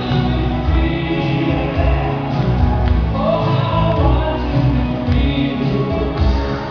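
Loud music with singing over a strong, recurring bass beat.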